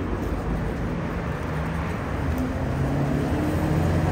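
Street traffic: a motor vehicle's engine running close by over steady road noise, its engine note climbing in a few steps.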